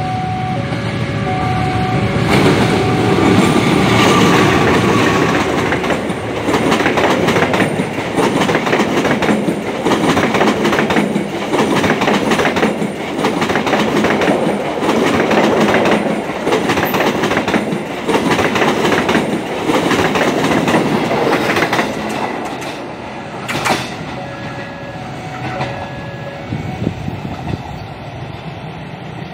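A passenger train passing close by, its wheels clattering over the rail joints for about twenty seconds before fading. A repeating electronic alarm beeps in short tones at the start and again near the end.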